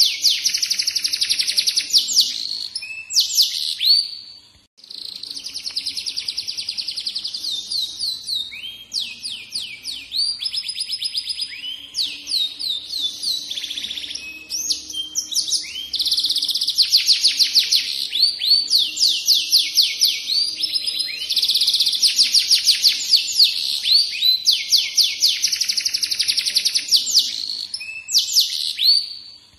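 Domestic canary singing a long, almost unbroken song of fast trills and rolling, repeated phrases, pausing only once, briefly, about four to five seconds in.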